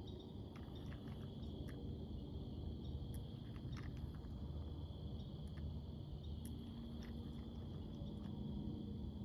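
Crickets or similar insects trilling steadily at a pond's edge, a continuous high chirring, with scattered light clicks. A low steady hum comes in about six and a half seconds in.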